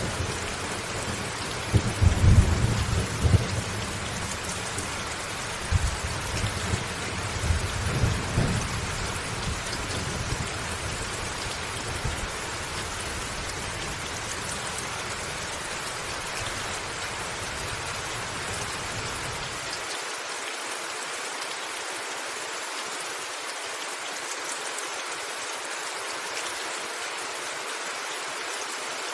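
Heavy rain falling steadily, with rolls of thunder rumbling through the first ten seconds or so. The deep rumble then dies away and cuts off suddenly about two-thirds of the way through, leaving only the hiss of the rain.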